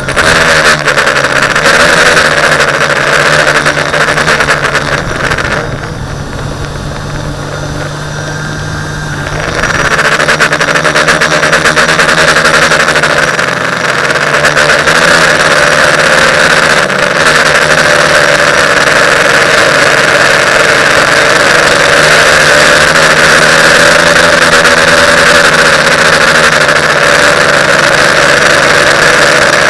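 TBS Discovery quadcopter's motors and propellers buzzing loudly in flight. The sound eases and drops in level about six seconds in, then comes back up about three seconds later and holds steady.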